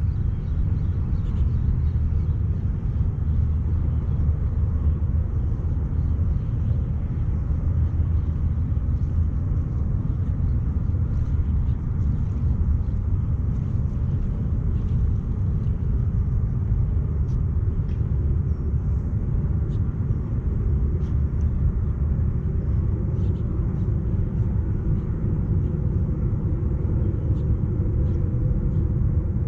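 Steady low rumble of wind buffeting the microphone, with a few faint ticks above it.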